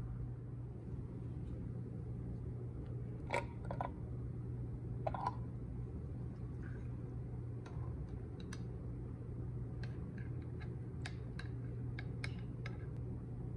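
Lid being taken off a glass jar with a few clicks about three to five seconds in, then a run of light clinks near the end as a metal fork goes into the jar, over a steady low hum.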